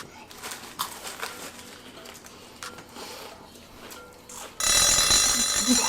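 Timer alarm ringing loudly for about two seconds near the end, signalling that the 30-second countdown has run out. Before it there are only a few faint clicks.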